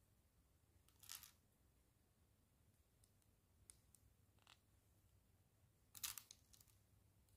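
Faint, scattered clicks of mini plastic building bricks being pressed onto a model and handled, a few sharp clicks spread through, loudest in a short cluster about six seconds in as loose bricks are picked from the pile.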